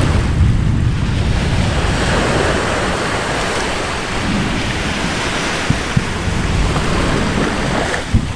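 Anak Krakatau volcano erupting: a deep rumble that eases after the first second into a steady rushing noise, with a few sharp cracks later on.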